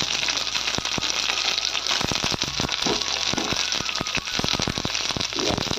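Chopped onions and garlic frying in hot oil in a kadai (wok), sizzling steadily with a dense crackle of small pops.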